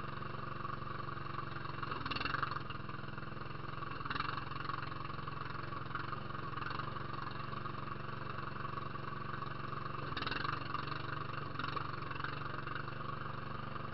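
Small engine of a ride-on off-road vehicle running steadily as it drives along a dirt trail, with brief louder surges about two, four and ten seconds in.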